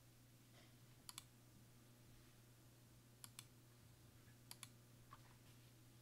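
Computer mouse button clicked three times, each a quick pair of sharp clicks, with a fainter click near the end, over near silence.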